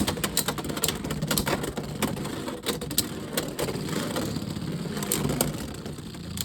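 Two Beyblade X spinning tops battling in a plastic stadium: a steady whirring, grinding scrape of the spinning tops, broken by many sharp clicks as they hit each other and the stadium walls.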